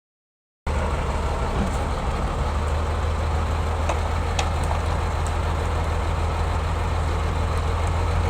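A heavy vehicle's engine idling steadily with a low-pitched drone, starting abruptly about half a second in.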